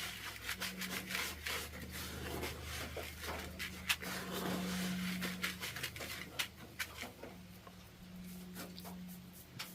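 Hand-mixing spices in a container: repeated scraping and rubbing with scattered sharp clicks and knocks, over a steady low hum.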